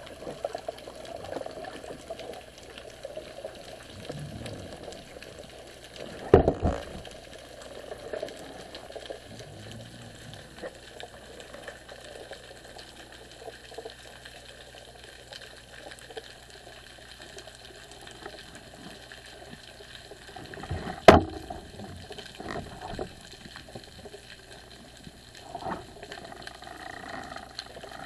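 Underwater water noise heard through a camera housing, a steady bubbling hiss, with two sharp knocks about fifteen seconds apart.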